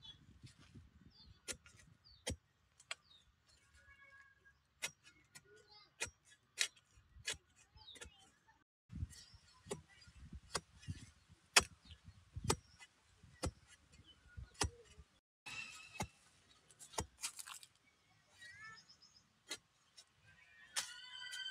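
Metal-bladed digging bar striking and prising into stony soil, a string of sharp irregular knocks and clinks, about one or two a second, as a bamboo shoot is dug out.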